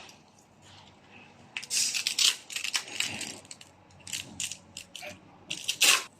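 Sanding block in hand use: a run of short, irregular scratchy strokes and clicks that begins about one and a half seconds in, the loudest near the end.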